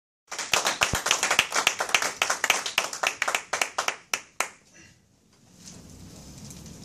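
A small audience clapping, a handful of people applauding together; the clapping thins out and stops about four and a half seconds in.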